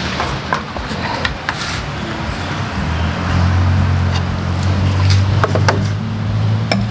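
A knife and wooden cutting board give a few sharp taps and scrapes as chopped spring onions are scraped off the board into a metal pot. Under them runs a steady low hum that gets louder about three seconds in.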